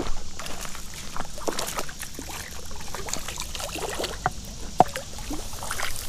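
Irregular splashing and trickling river water as a hooked smallmouth bass is brought in and landed, with a sharp click about five seconds in.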